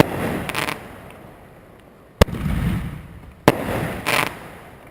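Fireworks going off: three loud, sharp bangs, at the start, a little past two seconds in and about three and a half seconds in, each followed by a rumbling echo, with crackling bursts about half a second in and again near the end.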